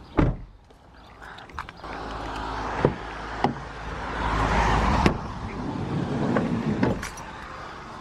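A car's driver door being opened, with several sharp clicks of the handle and latch, then the rustle of a jacket and seat as a person climbs into the driver's seat.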